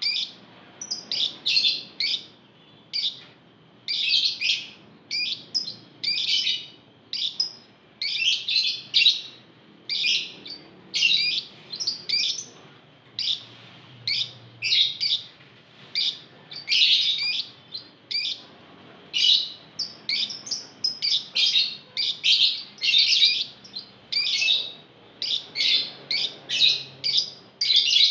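A caged flock of Fischer's lovebirds calling: shrill, high chirps and squawks in short overlapping bursts, several a second, without a break.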